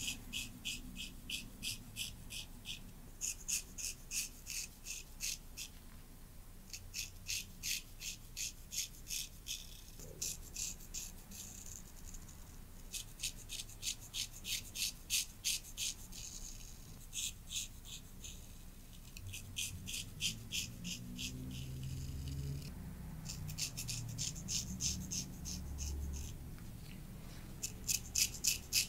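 Straight razor scraping stubble off a scalp in quick short strokes, about four scratches a second, in runs of a few seconds with brief pauses between.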